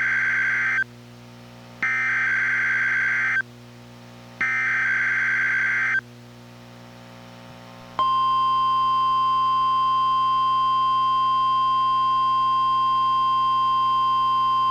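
NOAA Weather Radio Emergency Alert System broadcast, the opening of a required monthly test. It plays the end of one burst of SAME header data tones, then two more bursts of about a second and a half each with short gaps between them. About eight seconds in, the steady single-pitch NWR warning alarm tone starts.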